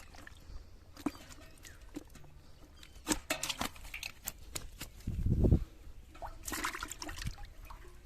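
Water splashing and sloshing in short irregular bursts with small clicks, and a loud dull thump about five seconds in.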